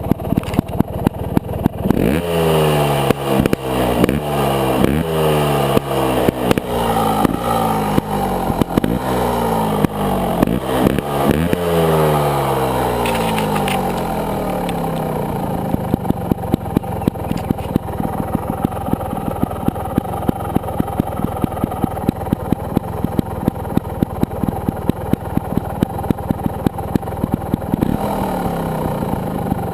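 Sherco Trial 300 two-stroke single-cylinder trials motorcycle engine blipped repeatedly, about one quick rev a second for some ten seconds, then settling into an idle with a regular beat, with one small rev near the end.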